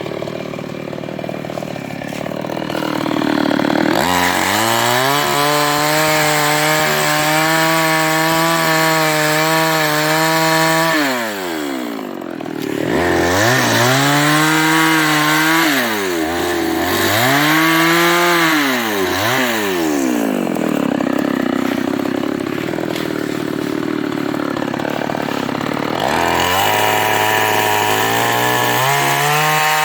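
New West 588 two-stroke chainsaw cutting teak wood. It goes to full throttle about four seconds in and holds there, drops off, revs up and down twice, runs low for a few seconds, then goes back to full throttle near the end.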